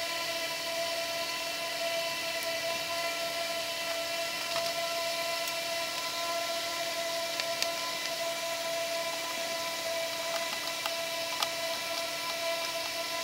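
A steady, even motor-like whine with several held tones, with a few light clicks as hose and electrical connectors are pushed back onto the engine.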